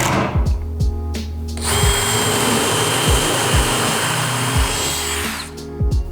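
A handheld power tool running steadily with a high whine for about three and a half seconds, starting about two seconds in, after a shorter burst of the same at the start. Background music with a steady beat plays underneath.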